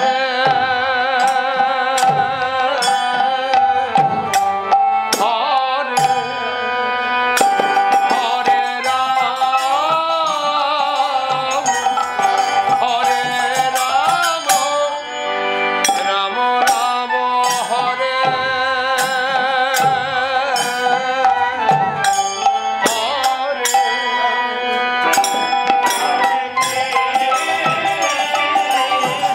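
Devotional kirtan music: a harmonium holding sustained notes, a bamboo flute playing a wavering melody, and a steady pattern of khol drum strokes and small hand-cymbal clashes.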